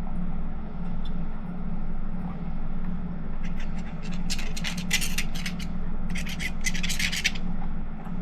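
Plastic rubbing and scraping on plastic as a 3D-printed TPU paddle tire is worked onto its PLA rim. It comes as two spells of short scraping strokes near the middle, over a steady low hum.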